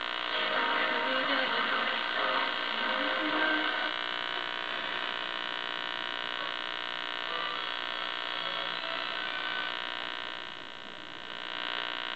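Homemade LMF501 AM radio receiver's speaker giving a steady hiss and hum as the tuning dial is turned between stations. A broadcast is faintly heard for the first few seconds and is then lost.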